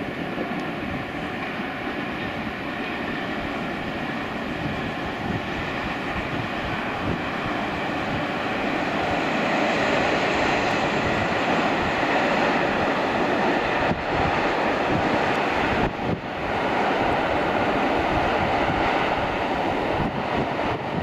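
Freight train of container wagons rolling past on the line below: a steady rushing rumble that swells about a third of the way in and then holds.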